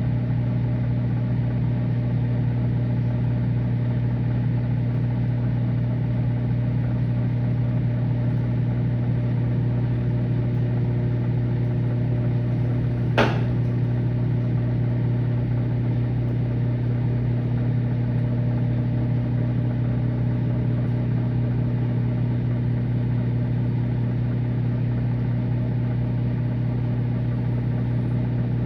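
Microwave oven running with a steady low electrical hum. One sharp click about halfway through.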